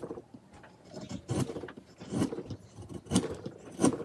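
Flat wood chisel paring shavings off a small wooden lure blank held in a vise: about five short, sharp scraping cuts at an uneven pace.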